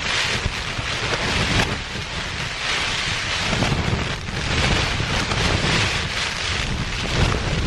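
Strong, gusting wind buffeting the microphone with a low rumble, over the steady hiss of heavy rain; the gusts swell and ease every second or two.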